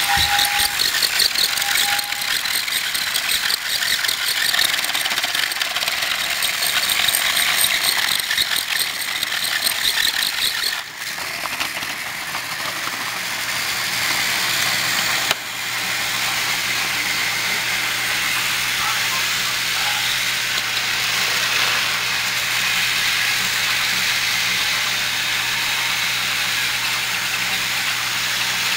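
Battery-operated Trackmaster toy trains running on plastic track: small electric motors whirring through their gearing, with a rapid, even ticking rattle. The sound changes abruptly about eleven and fifteen seconds in, then settles into a steadier whir with a low hum.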